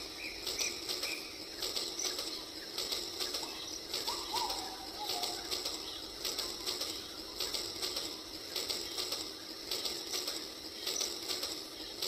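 Battery-powered toy train running along its track through shallow water: a fast, fluttering clatter from its motor and wheels, with a couple of short chirps about four seconds in.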